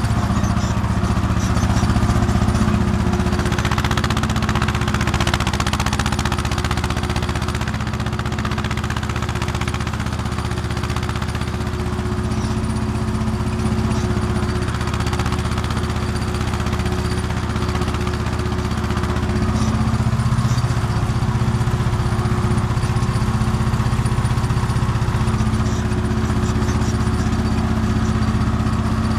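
Old tractor engine running steadily while pulling a ridger through a field, heard from the operator's seat right beside the vertical exhaust pipe.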